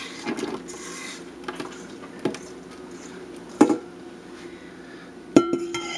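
A spatula scraping sugar out of a mixing bowl into a steel stock pot, with scattered taps and knocks of the bowl and spatula against the pot. Near the end a sharper knock sets the pot ringing briefly.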